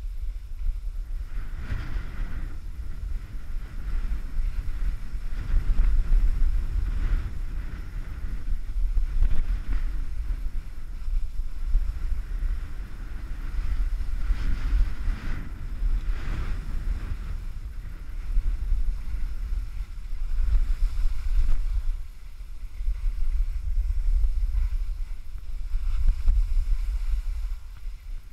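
Wind buffeting the action camera's microphone during a downhill ski run, heard as a steady low rumble. Every few seconds it swells into a louder hiss as the skis scrape the snow through a turn.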